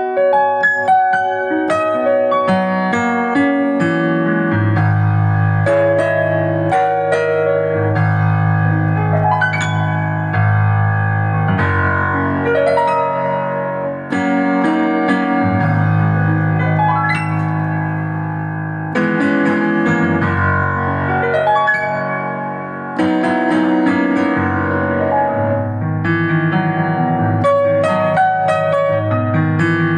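Digital keyboard playing its sampled Yamaha CFX grand piano voice: a solo piano piece, a melody of struck notes over held low bass notes and chords.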